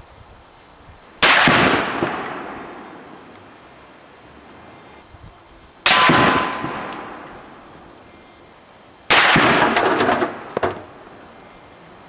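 Three gunshots about four and three seconds apart, each followed by a long echo that dies away slowly. The last shot has a ragged, broken-up tail.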